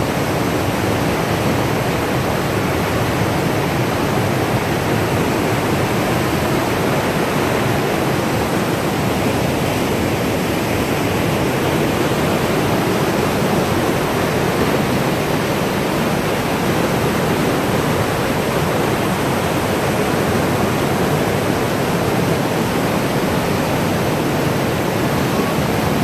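River rapids: fast water rushing and churning over boulders, a steady, loud, even rush with no let-up.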